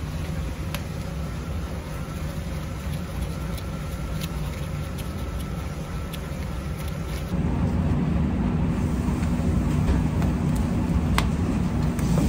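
Steady low machine hum with scattered light clicks as a nut driver works the band clamp of a no-hub rubber pipe coupling. The hum jumps louder about seven seconds in.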